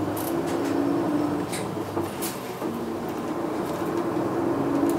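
Diesel engine and drivetrain of a 2015 Hino Blue Ribbon II non-step city bus, heard from inside the cabin while it drives, the engine note climbing, dipping about two and a half seconds in, then climbing again. Light clicks and rattles come through over it.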